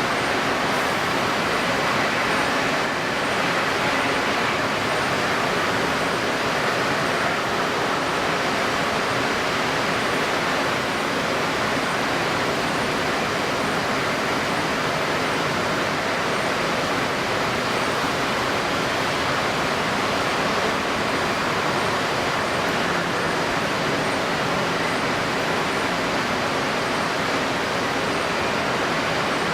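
Steady rushing noise of strong wind and wind-stirred water, even and unbroken, sped up to 1.75x playback.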